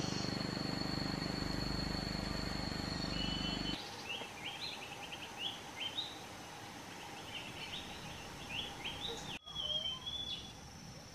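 Steady low hum with a high steady whine, giving way about four seconds in to quieter countryside ambience with a run of short bird chirps. Another bird whistles briefly near the end.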